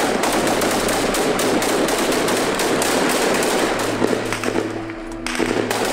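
Heavy, rapid gunfire: a dense, continuous crackle of automatic-weapon shots. Near the end, music with a few held low notes comes in under it.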